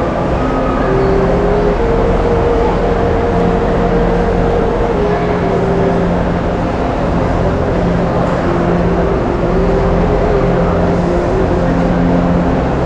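Steady ambience of a crowded indoor shopping-mall atrium: a constant low rumble with a few faint held tones that shift in pitch now and then.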